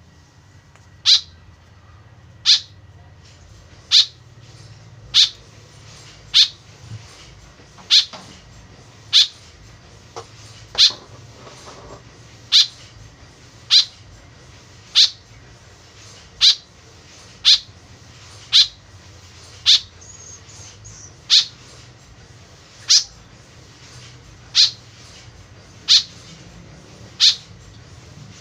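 White-breasted woodswallow calling over and over: a short, sharp, high-pitched call repeated about once every second and a half.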